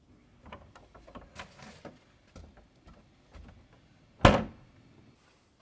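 Plastic wheelie-bin lid banging shut once, loudly, a little over four seconds in. Before it, light scattered knocks and rustling as the bin is opened and a cardboard note is handled.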